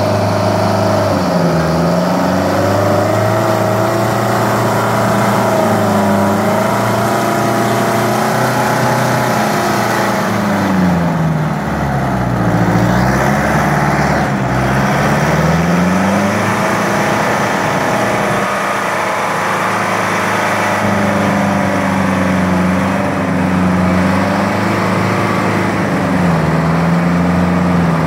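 Michigan 175-A wheel loader's diesel engine running as the machine works, its speed rising and falling; near the middle it drops well down and then climbs back up.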